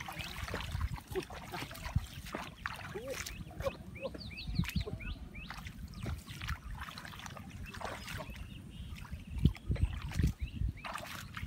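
Bare feet wading through shallow water in a flooded rice paddy, with irregular sloshing and splashing steps, followed by hands stirring the water.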